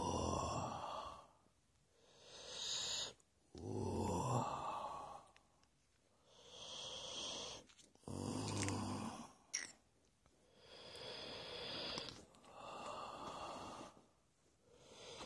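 Heavy, rasping breathing close to the microphone. A low, snore-like rasp alternates with a breathy hiss, about one breath cycle every four seconds.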